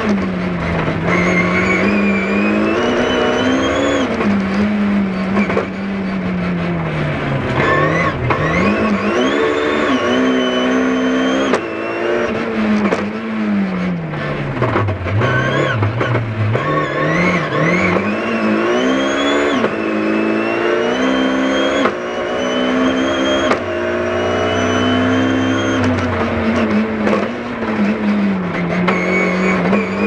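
BMW R+ MAXI rally car's engine heard from inside the cabin, driven hard: the engine note repeatedly climbs and drops as it is run up through the gears and brought down for corners, dipping low twice before climbing again in quick steps.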